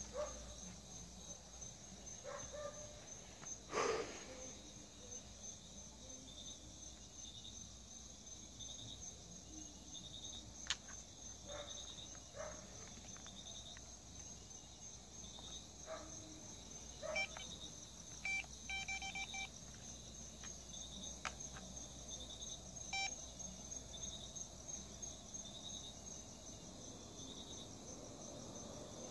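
Crickets and other night insects chirping steadily: a continuous high trill with regular short chirps over it. A few faint knocks and rustles come through, and about two-thirds of the way in there is a brief burst of electronic beeping.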